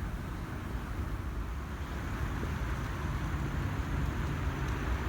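Steady low rumble of a car driving on the road, with no distinct events.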